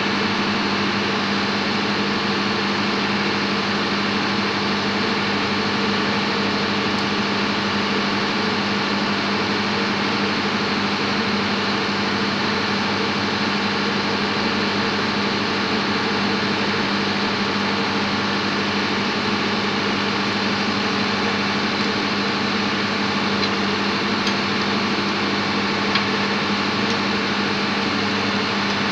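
Steady drone of running machinery in a tug boat's engine room: a constant hum with a wide noisy wash that does not change, and a few faint ticks near the end.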